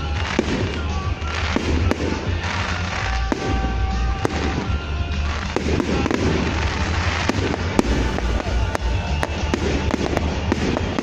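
Fireworks going off in quick succession: a stream of sharp bangs and crackles over a constant low rumble.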